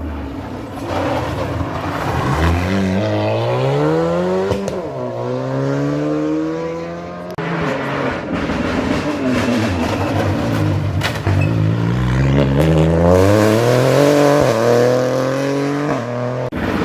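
Rally car engine accelerating hard at full throttle, its pitch climbing through each gear and dropping at every upshift, with a few sharp cracks. About seven seconds in the sound breaks off and a second car-pass stretch follows with the same climbing revs and quick upshifts.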